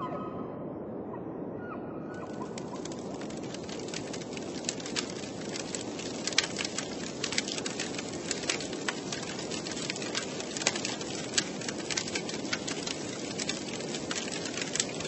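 Large outdoor bonfire burning: a steady low rush of flames, with frequent sharp crackles and pops of burning wood starting about two seconds in.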